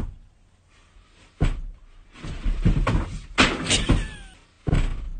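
A run of thumps, bumps and scuffling from a person slipping and stumbling on a floor. There is a knock at the start and another about a second and a half in. The busiest, loudest stretch comes in the middle, with a short falling squeak just after four seconds and a last heavy thud near the end.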